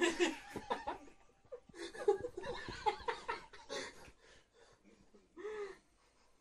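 Laughter in short, broken bursts, dying away about a second before the end.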